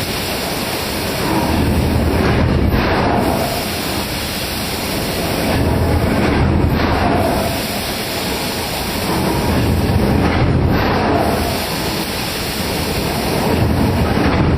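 Loud, steady machinery noise of a hot forging line, a hissing roar that swells about every four seconds in time with the press cycle.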